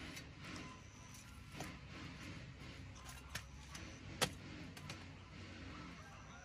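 Knife and cleaver working a peeled tuber on a woven bamboo tray: a few light knocks, with one sharp chop about four seconds in as the loudest sound.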